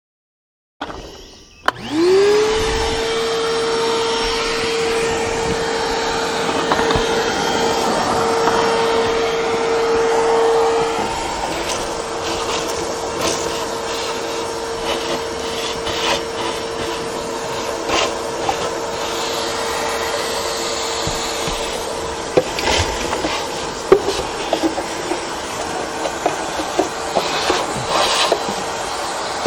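Vacuum cleaner switched on about two seconds in, its motor whine rising quickly to a steady pitch and running on, cleaning the car's bare floor before new carpet goes in. Scattered knocks and scrapes come in over the later part.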